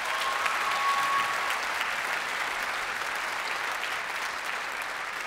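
Audience applauding, swelling in the first second and then holding steady, with a brief high steady whistle-like tone near the start.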